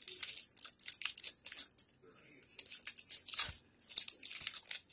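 Crinkling and tearing of a snack bar's wrapper being pulled open by hand, in irregular crackling bursts with a short lull about two seconds in.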